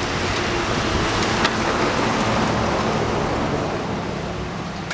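Dense, steady roar of demolition machinery: excavator-mounted hydraulic hammers breaking up a concrete bridge, with their diesel engines running. A sharp knock comes about one and a half seconds in, and the roar eases a little near the end.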